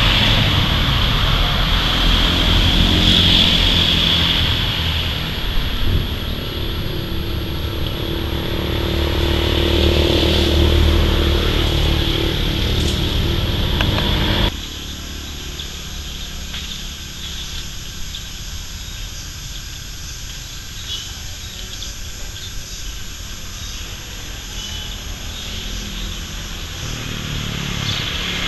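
Outdoor background noise: a steady low rumble with a high hiss, dropping suddenly to a quieter ambience about halfway through.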